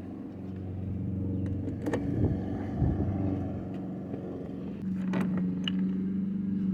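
A steady low engine hum, with a few short metallic clicks and knocks from handling a hand rivet gun and a rivet.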